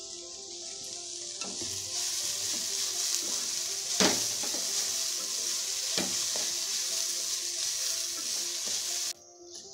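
Upma mixture of rice and vegetables sizzling in an aluminium pot as a wooden spatula stirs in freshly added amaranth greens. The sizzle grows louder about two seconds in, with a few sharp scrapes of the spatula against the pot, and cuts off suddenly near the end.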